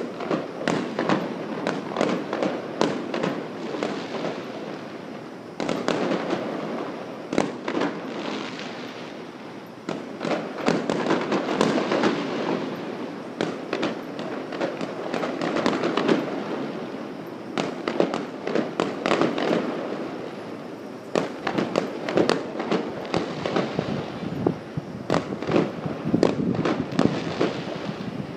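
Fireworks going off nonstop: rapid bangs and crackling bursts close together, swelling and easing in waves every few seconds.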